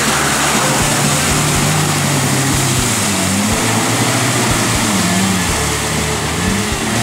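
Lifted Suzuki Samurai's engine revving as it drives through a muddy, water-filled trench, with splashing water; the revs rise and fall a few times in the middle.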